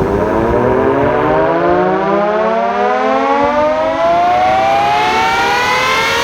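AimGlobals AGS 5 DCB double-ended electric motor siren (2 HP motor) winding up after switch-on, its wail rising steadily in pitch and beginning to level off near the end.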